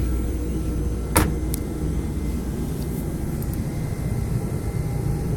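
The front cover of a Roland DWX-50 dental mill shutting with one sharp click about a second in, over a steady low hum.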